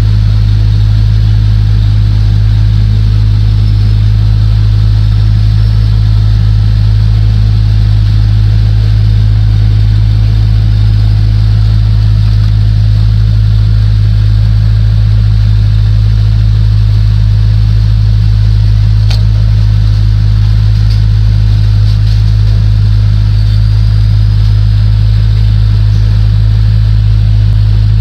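A loud, steady low hum that never changes in pitch or level, with one faint click about two-thirds of the way through.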